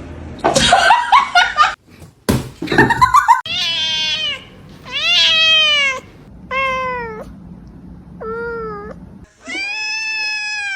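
Domestic cat meowing five times, each a long, drawn-out call that rises and falls in pitch; the last is the longest. It follows two short, noisier bursts in the first few seconds.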